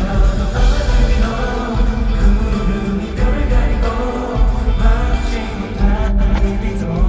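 Live K-pop song with a male vocal group singing over a full band or backing track, heard through an arena's PA system.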